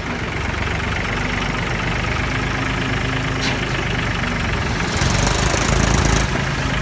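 Mahindra 275 DI tractor's diesel engine running steadily as it works a front-loader bucket into a gravel pile. It grows louder about five seconds in, for just over a second, then settles back.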